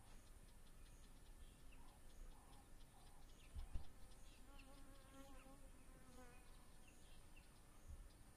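Quiet bush ambience with a flying insect buzzing close by for about two seconds in the middle, its pitch wavering. A brief low thump comes a little before it.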